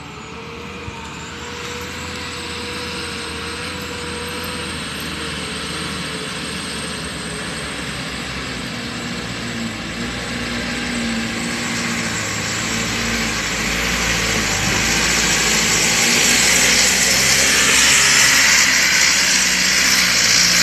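Diesel engine of a sand-laden Isuzu Elf truck labouring up a steep dirt climb under a heavy load. It grows steadily louder as the truck comes closer, loudest near the end.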